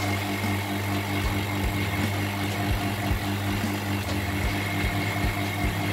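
Value rotary-vane vacuum pump running steadily: an even low hum with a thin high whine above it.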